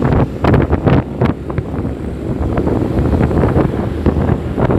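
Wind buffeting the microphone of a camera riding on a moving motorcycle: a loud, low rushing rumble, with several hard gusts in the first second and a half.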